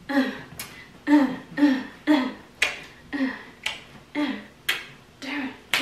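Finger snaps in a steady beat, about two a second, each paired with a short vocal syllable that falls in pitch.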